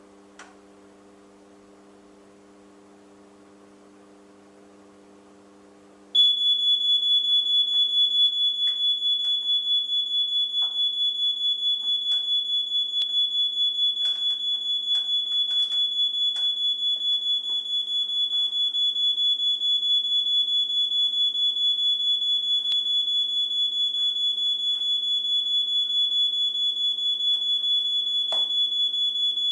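Fire alarm sounding a loud, continuous high-pitched tone with a fast flutter. It starts suddenly about six seconds in, after a faint low hum.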